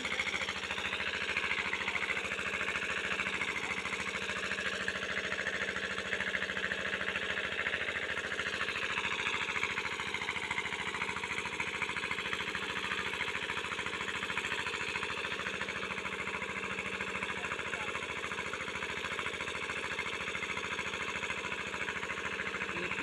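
A small engine running steadily, with a fast, even knocking beat.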